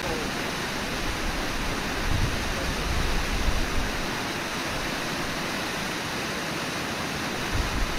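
Steady rush of white water at the foot of Brooks Falls, the river pouring over the falls and churning through the rapids.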